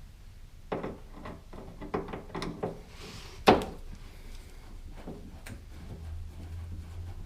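A run of irregular clicks and knocks from hand tools working the fasteners of a car's rear diffuser, the loudest strike about three and a half seconds in, over a low steady hum.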